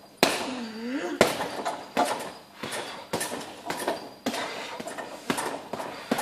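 Boxing gloves hitting a hanging Fighter heavy punching bag: sharp slaps and thuds in irregular combinations, about ten punches.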